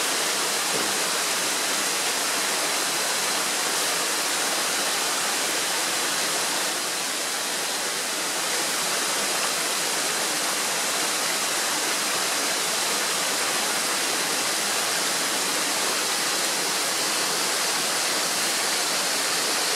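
Stream water rushing steadily over a shallow rocky bed, an even hiss without breaks.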